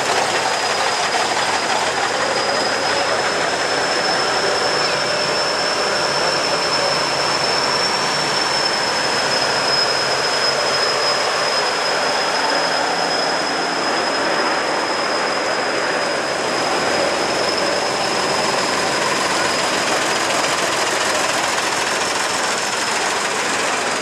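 Old Eastern Bloc trucks and a large tractor driving slowly past on a wet road: a steady mix of diesel engine noise and tyre hiss, with a thin high whine throughout.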